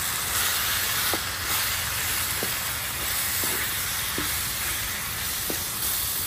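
Raw shrimp and stir-fried vegetables sizzling and hissing steadily in a hot pan, with a few light knocks of a wooden spoon as the shrimp are stirred in.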